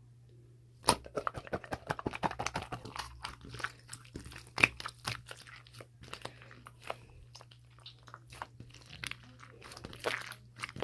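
Close-up crunching and chewing of crisp food, starting about a second in as a rapid run of sharp crackles that keeps going unevenly.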